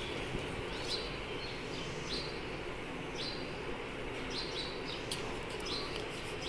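Small birds chirping: many short, high calls, one every half second to a second, over a steady background hiss.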